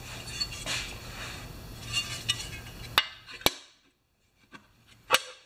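Clinks and light knocks of chainsaw gas-tank parts being handled and fitted together, with sharp taps about three seconds in, again half a second later, and near the end.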